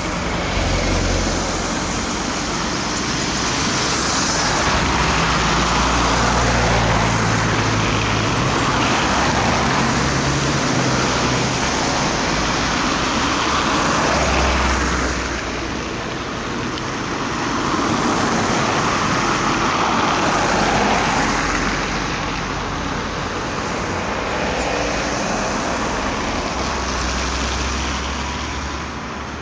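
Road traffic: cars, vans and trucks driving past on a slushy road. Tyre noise swells and fades several times as vehicles pass, over a low engine rumble.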